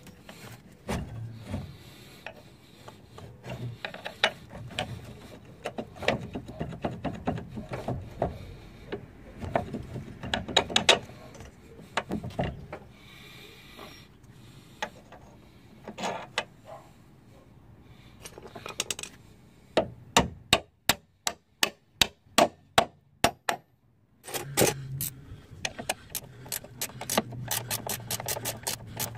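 Hand tools working on metal car suspension parts: scattered metallic clicks and knocks, then a ratchet wrench clicking in evenly spaced strokes, about two a second, getting faster near the end.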